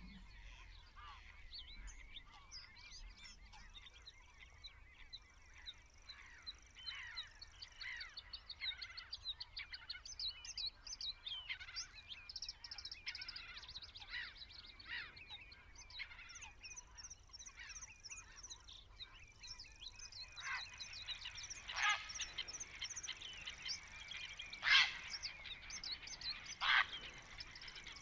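Wild birds calling at a waterside: a busy run of short, high chirps, with a few louder, sharper calls near the end.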